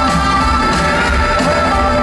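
Rock band playing live in an arena: a steady bass line and held notes, with a sung vocal.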